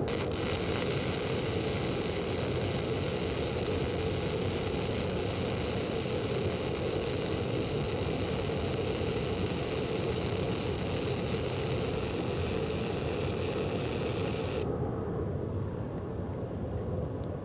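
Self-shielded flux-cored arc welding run with correct wire feed speed, voltage, contact-tip-to-work distance and travel speed: a steady, even crackling arc as the wire is dragged along the joint. The arc cuts off suddenly near the end, and a lower steady noise carries on.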